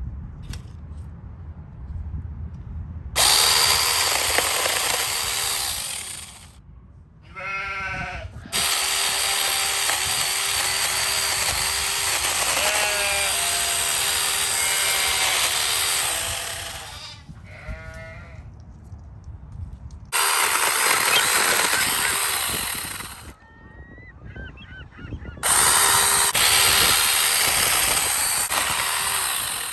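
Tomyvic 6-inch cordless mini chainsaw, a 21-volt battery saw, running in four bursts of about three to eight seconds each, most likely cutting branches. In the pauses between bursts, goose-like honks are heard twice.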